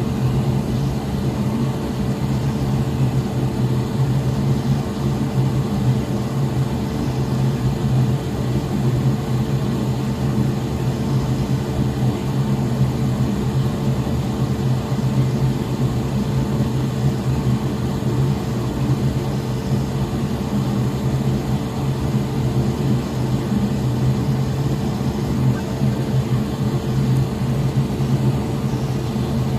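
Desoldering gun's vacuum pump running steadily with a constant motor hum while the solder is sucked out of the HDMI port's through-holes on a PS5 board.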